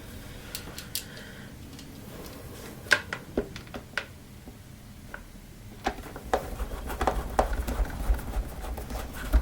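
Scattered clicks and knocks of vacuum cleaner casing parts being handled and fitted back together, with a low rumble of handling from about six seconds in.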